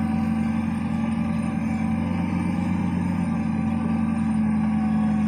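Forklift running steadily at an even pitch.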